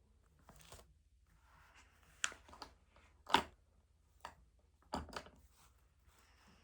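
A series of short knocks, clicks and rustles of desk work, about seven in all, with the loudest knock near the middle: study materials such as paper, pen or other stationery being handled on a desk.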